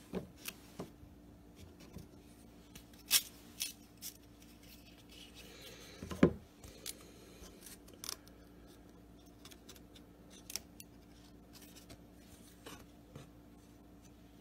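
Scattered small clicks, rubs and scrapes of baseball cards and plastic card holders being handled, with a sharp click about three seconds in and a louder clack about six seconds in.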